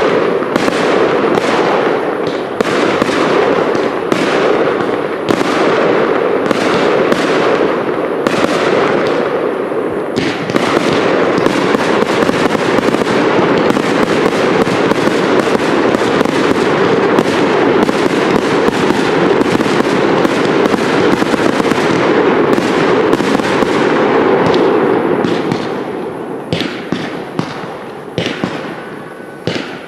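Cake fireworks (multi-shot batteries) firing a dense, continuous barrage of launches and bursts. After about 25 seconds it thins out into scattered separate cracks.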